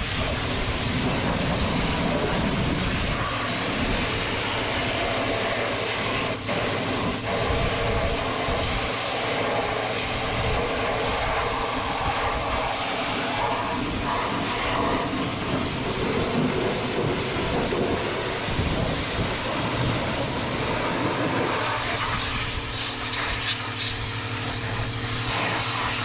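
High-pressure washer spraying farm machinery: the steady hiss of the water jet over the hum of the washer's pump, which shifts slightly near the end.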